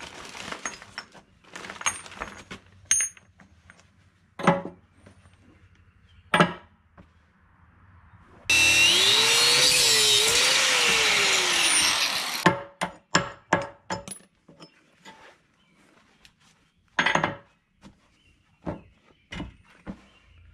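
An angle grinder cuts into the steel tooth shank of an excavator bucket, the spot where worn and missing teeth are being replaced. The grinding runs loud for about four seconds in the middle. Its motor pitch rises, dips as the disc bites, and falls away as it stops. Before and after come scattered sharp metallic knocks and clicks of parts being handled.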